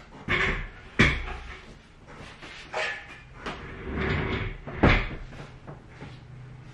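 A small table being pushed across a hardwood floor: its legs scrape and knock several times, with the sharpest knocks about a second in and again near five seconds.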